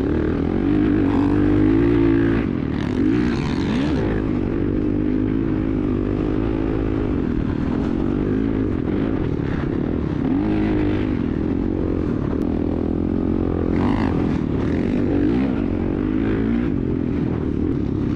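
Dirt bike engine running continuously while riding, its pitch rising and falling repeatedly as the throttle is worked.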